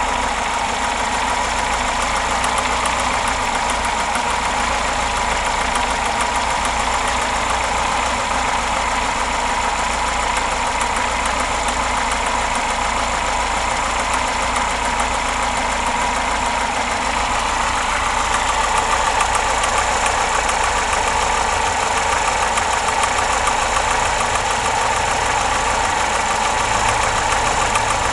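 Car engine idling steadily with an extraneous noise from the engine area, which the owner suspects is a worn water-pump or alternator bearing.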